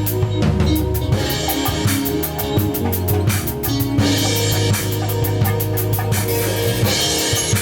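A band playing: a drum kit keeps a steady beat of kick and snare over a low bass line and held chords.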